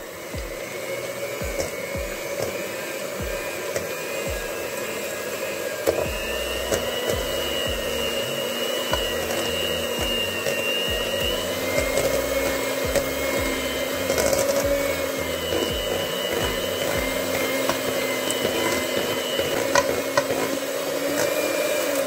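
Electric hand mixer running steadily with a whining motor, its beaters churning cottage cheese and eggs in a stainless steel bowl. It cuts off at the end.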